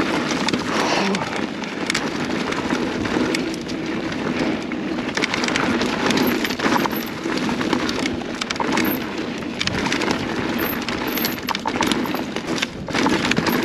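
Mountain bike rolling along a dirt singletrack: knobby tyres crunching over packed dirt, leaves and small rocks, with a steady rolling noise and many irregular clicks and rattles from the bike.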